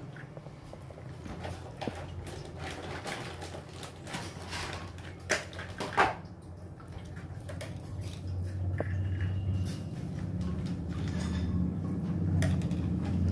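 Hands squeezing and kneading a wet ground paste of poppy seeds, coconut and rice in a muslin cloth over a metal pot, pressing out the milk: soft irregular squelching and handling noises, with two sharper clicks about five and six seconds in. A steady low hum runs underneath.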